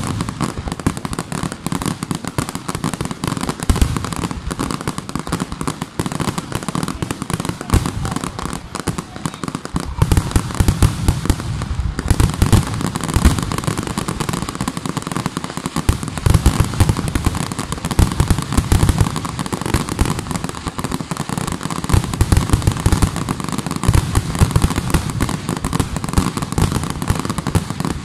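Aerial fireworks display: a dense, continuous barrage of shell bursts with crackling in between, growing thicker about a third of the way in.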